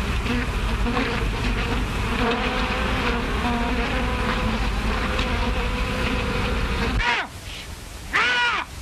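Continuous buzzing of a swarm of bees, steady and dense, which cuts off abruptly about seven seconds in. Near the end comes a short cry that rises and falls in pitch.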